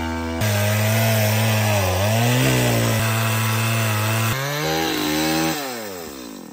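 Stihl two-stroke chainsaw running at high revs while cutting through a fallen branch, its pitch dipping as the chain bites into the wood. Near the end the engine speed falls away as the throttle is let off.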